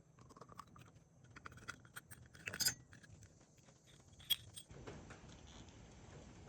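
Small metal parts and hand tools clicking and clinking while a small engine's carburetor is worked on, with a louder clink about two and a half seconds in and another sharp click a couple of seconds later.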